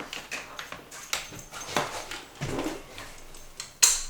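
Clicks and knocks of a coax cable connector being handled and fitted to the radio, with a sharp, louder click near the end.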